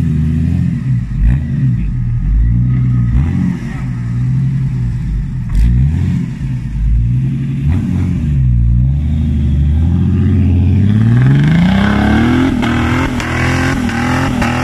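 Off-road 4x4's engine revving up and down repeatedly as it works at a steep climb, then rising steadily to high revs and holding there near the end.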